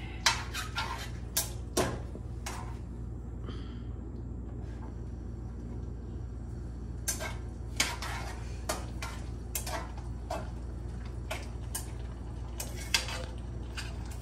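Metal tongs clinking and scraping against a metal frying pan while pasta is tossed, in irregular sharp clinks with a pause of a few seconds in the middle, over a steady low hum.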